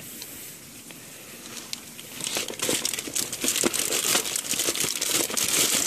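Dry bag's waterproof fabric crinkling and rustling as it is handled and packed, faint at first and growing dense and loud about two seconds in.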